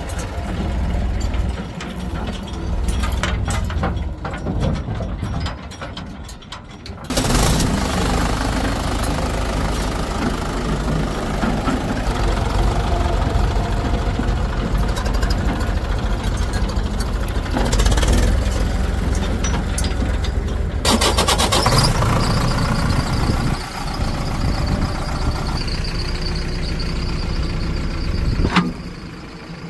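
Diesel engines of farm tractors and a backhoe loader running under load. The sound drops lower for a few seconds, then changes abruptly several times.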